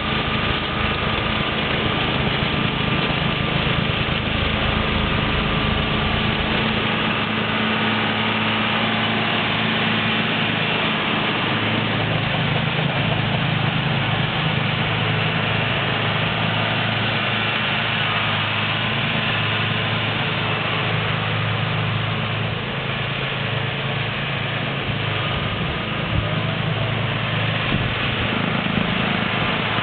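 John Deere 4450 tractor's six-cylinder diesel engine running steadily while driving a snowblower, its note shifting a little about seven and again about twelve seconds in.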